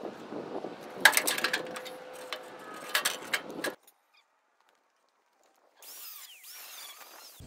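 Sheet-steel patch pieces on a 1948 Willys truck cab being handled and fitted by hand, clanking and scraping metal on metal. There are sharp clanks about a second in and again about three seconds in, then the sound cuts out abruptly for about two seconds before faint scraping resumes.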